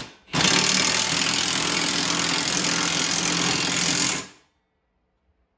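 Cordless impact wrench running for about four seconds, tightening a nut on a disc-brake spindle assembly, then stopping abruptly.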